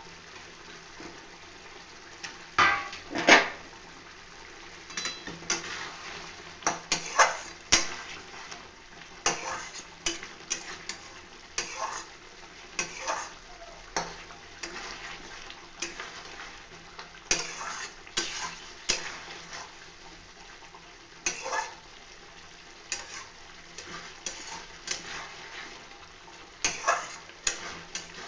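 A metal spatula scraping and knocking against a metal kadai, stirring a thick bubbling poppy-seed gravy with pieces of fish in it. The strokes come irregularly, the loudest two about three seconds in, over a faint steady sizzle of the simmering gravy.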